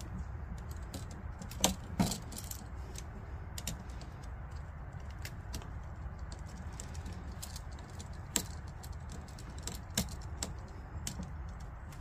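Light metallic clicks and ticks of a screwdriver and switch being worked as the hot wire is tightened onto the common terminal screw of a three-way switch. The sharpest clicks come near 2 s, 8 s and 10 s, over a steady low rumble.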